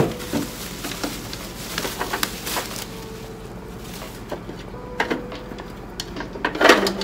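Plastic bubble wrap crinkling and rustling as it is pulled off a clear acrylic drawer organizer, with a few light clicks and knocks of the hard plastic case being handled.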